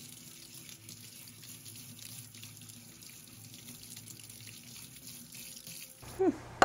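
Kitchen tap running into a stainless steel sink while a quahog is scrubbed under the stream with a bristle brush, a steady water sound that cuts off near the end.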